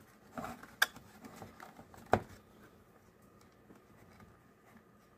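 Small clicks and taps from hard plastic case parts being handled and pressed together, with two sharp clicks about one and two seconds in, then quiet.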